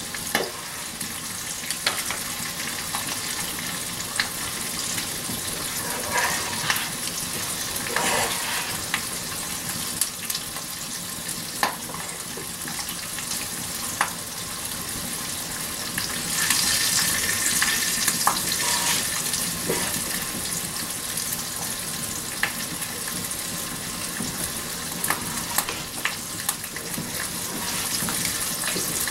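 Salt pork sizzling as it fries in a pan over an open hearth fire, with scattered sharp clicks; the sizzling swells louder for a few seconds past the middle.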